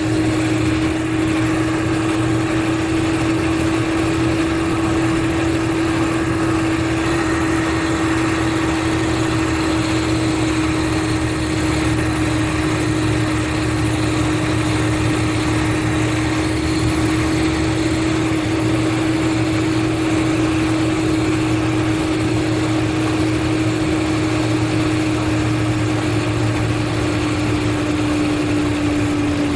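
Mercedes-Benz O500RSD coach's diesel engine running steadily, with a clear steady whine over its hum; the whine drops slightly in pitch near the end.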